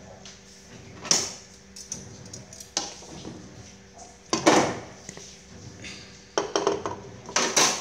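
Utensils knocking and scraping against a large aluminium pot and a ceramic plate as a whole roast chicken is lifted out of the pot onto the plate: several separate clanks, the loudest about four and a half seconds in, with another cluster near the end.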